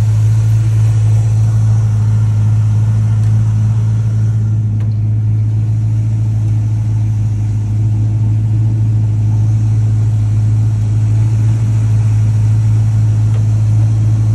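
1976 Chevrolet K10 pickup's engine idling steadily, an even low running note, on an engine just brought back to life after sitting unstarted for 21 years.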